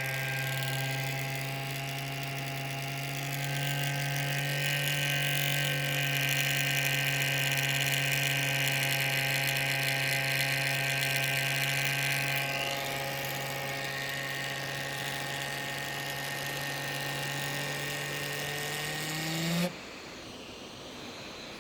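Alienware m15 R3 laptop cooling fan running with a steady pitched hum, louder for several seconds in the middle. Near the end it rises briefly in pitch and cuts off suddenly, leaving a faint hiss. The owner suspects the fan's bearings are bad.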